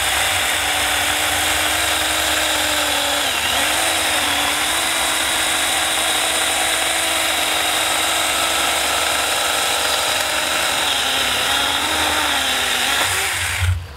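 Saker 4-inch mini cordless electric chainsaw running and cutting through a soft basswood stump: a steady, loud motor-and-chain whine. The motor's pitch dips briefly about three seconds in and again near the end, then the saw stops just before the end.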